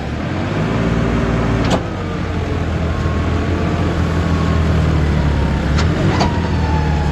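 John Deere 5405 tractor's diesel engine running hard under load, rising to high revs in the first second and holding there, as the tractor strains to pull free of soft, wet ground. A few sharp clicks sound over it.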